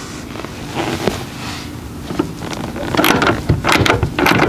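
Hand tools working at a pickup truck's rear seat bolts: a steady hiss with a few soft clicks, then a quick irregular run of clicks and knocks from about three seconds in.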